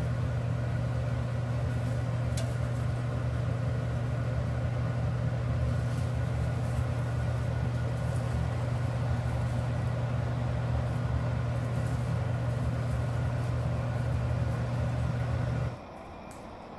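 Kitchen range hood fan running: a steady low hum with a rushing noise, which stops abruptly near the end.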